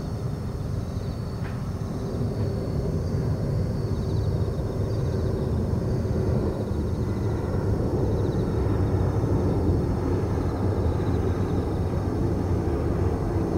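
Boeing 747-400's four Pratt & Whitney PW4056 turbofans on final approach passing low overhead: a deep, rumbling engine noise that grows steadily louder, with a few thin whining tones above it.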